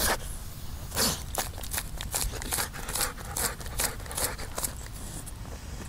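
Dog digging in dry, stony dirt with its front paws: repeated scratching scrapes, about two or three a second, mixed with excited sniffing and snorting at the hole.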